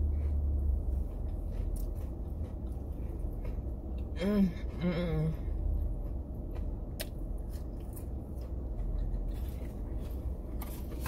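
Crisp fried chicken sandwich being bitten and chewed, with scattered short crunches, and a brief hummed "mm" about four seconds in. A steady low hum runs underneath.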